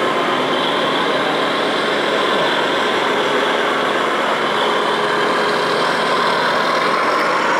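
Steady truck diesel-engine sound played by the electronic sound modules of radio-controlled scale model trucks as they drive, over a constant background noise.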